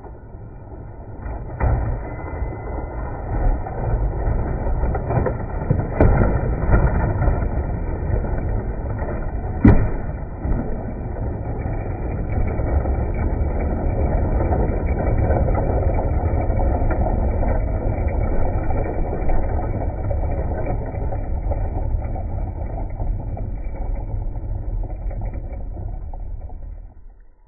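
A G-scale garden model train crashing into a water-filled trench. A steady low rumble starts about a second in, with sharp knocks near 2, 6 and 10 seconds, and it carries on until it cuts off abruptly near the end.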